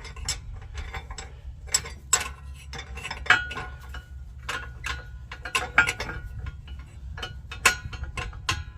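Irregular metallic clinks and knocks of a metal skid plate and hand tools being worked against the underside of a van's frame, some strikes ringing briefly.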